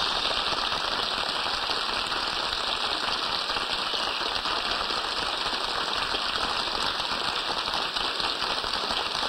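Studio audience applauding steadily, heard on an old radio broadcast recording.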